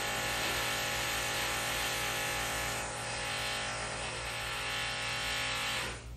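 Loud construction power-tool noise from building work next door: a harsh, steady din with a whine of several steady tones over it, cutting off suddenly near the end.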